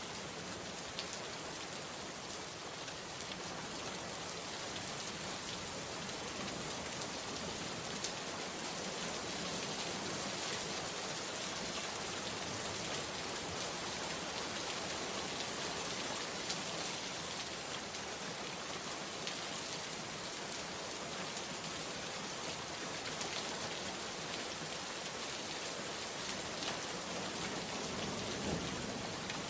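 Steady rain falling, an even hiss with scattered individual drop ticks standing out.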